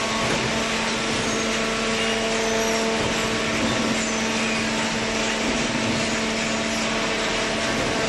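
Hydraulic waste paper baler running: its electric motor and hydraulic pump make a steady hum with a few constant tones over an even machine noise.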